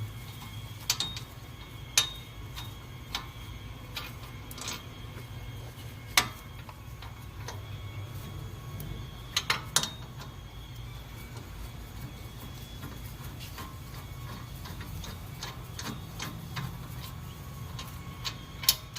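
Ratchet wrench clicking and sharp metallic clinks of steel tools and bolts as the four 17 mm bolts of a rear wheel hub assembly are worked loose, over a steady low hum.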